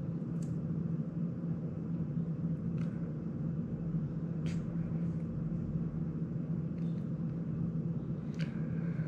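A steady low hum with four brief, faint clicks spread across it as a small FPV drone's frame and prop guards are handled.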